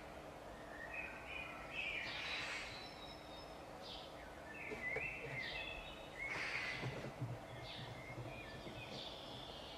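Garden birds calling: many short chirps and whistles, with a few harsh, rasping calls about two and six seconds in.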